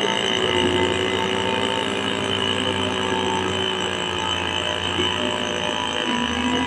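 Bulldozer's diesel engine running steadily with a droning hum, its pitch shifting slightly near the end.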